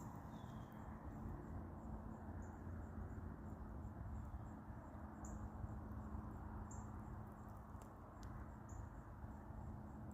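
Outdoor ambience: a steady low rushing noise, with a short high-pitched chirp repeating every one and a half to two seconds.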